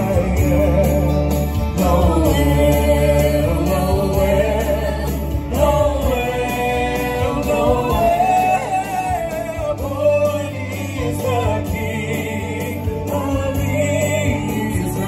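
Music: a sung Christmas song, with voices carrying a melody over a sustained low bass accompaniment. The bass drops out for a few seconds past the middle while the singing goes on.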